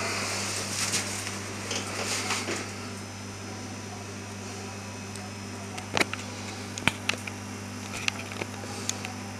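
Steady hum of a desktop computer's fans running as it boots, with a rustle in the first couple of seconds and a few sharp clicks about six to eight and a half seconds in.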